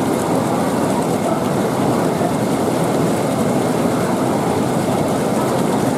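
Steady, loud rushing din with no clear rhythm, tone or separate knocks.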